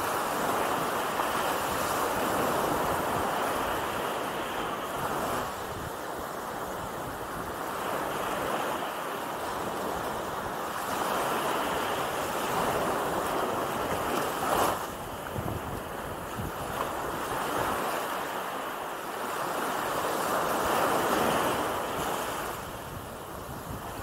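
Small Gulf of Mexico waves breaking and washing up over the sand at the water's edge, the wash swelling and easing every few seconds. A brief sharp crack stands out a little past halfway through.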